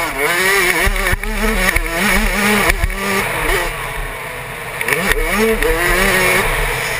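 Suzuki RM85 two-stroke motocross bike engine revving hard, its pitch climbing and dropping over and over as the throttle opens and closes, with wind buffeting the helmet-camera microphone. A couple of sharp knocks come about one and three seconds in.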